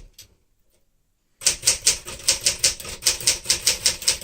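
1964 Smith-Corona Sterling manual typewriter being typed on: a single keystroke, then after about a second and a half of near silence a fast, even run of key strikes at about five to six a second.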